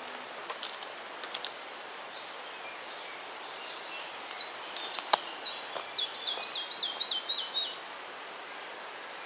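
A songbird singing a run of about a dozen short, quick notes that step down in pitch over about four seconds, over a steady background hiss. A single sharp click about five seconds in.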